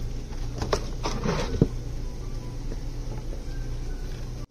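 A few knocks and scrapes in the first second and a half as a rice cooker is handled inside its cardboard shipping box, over a steady low hum.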